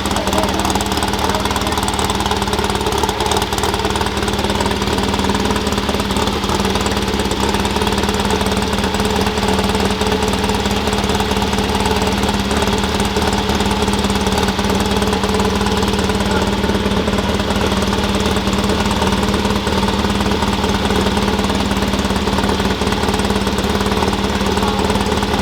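An engine running steadily at constant speed: a fast, even low pulsing under a steady hum, with no revving.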